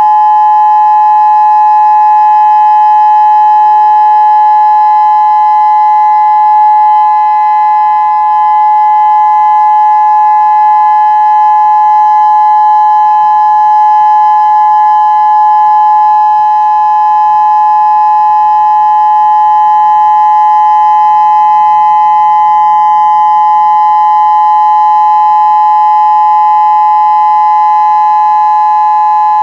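Federal Signal Modulator 6032 outdoor warning siren sounding its steady Alert tone, loud and unbroken, two pitches held together with no rise or fall.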